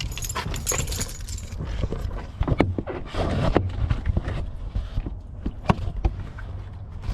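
Scattered clicks and knocks with some rustling from keys and handling while someone climbs into a car; no engine start is clearly heard.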